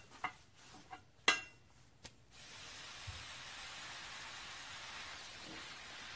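Metal pieces clink and ring a few times. Then, a little over two seconds in, an oxy-acetylene torch starts a steady hiss that holds.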